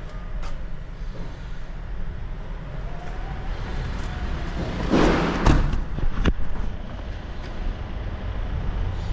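Steady low mechanical rumble of a vehicle engine, with a short hissing burst about five seconds in followed by a couple of sharp clicks.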